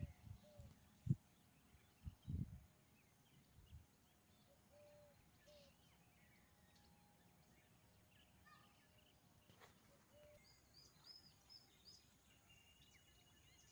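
Near silence with faint background noise and a few faint bird chirps, plus a couple of short low thumps in the first few seconds.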